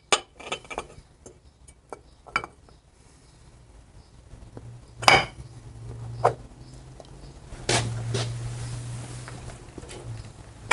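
Metal parts of a Harley-Davidson Evolution engine's cam chest clinking as they are handled, then the chrome cam cover set onto the case with a few sharp metallic knocks, the loudest about five seconds in. A low hum sits underneath in the second half.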